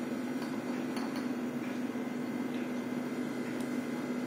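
Steady low hum of kitchen room tone, with a few faint light ticks.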